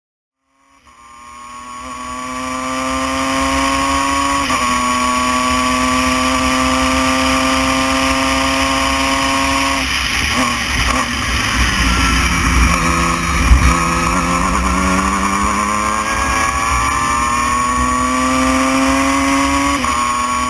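Open-wheel race car's engine heard onboard at speed, fading in: the note climbs steadily through a gear with a shift about four seconds in, drops away in the middle as the car slows for a corner, then pulls back up with another shift near the end, over a steady hiss of air noise.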